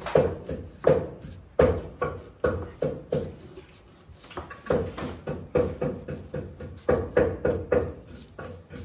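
Knife chopping on a cutting board in quick, uneven strokes, about two or three a second, softer for a moment around four seconds in.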